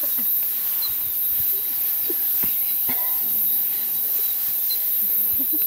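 Steady high-pitched insect chorus in the bush, with a couple of faint clicks about two and a half and three seconds in.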